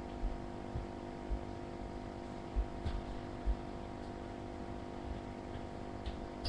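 Steady hum made of several level tones, with a handful of short, dull low thumps in the first half.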